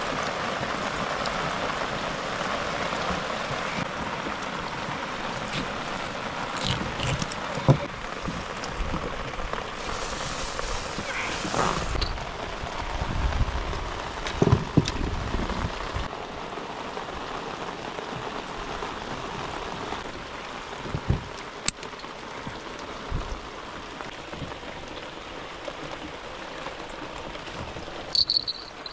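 Steady hiss of water, with a few sharp knocks and clicks from gear being handled on a wooden deck, and a brief high squeak near the end.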